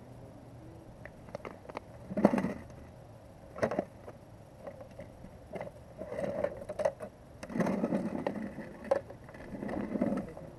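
Irregular rustles, scrapes and knocks of handling gear, with a white plastic bucket reached into and handled partway through. The loudest bursts come about two seconds in and again from about seven to ten seconds.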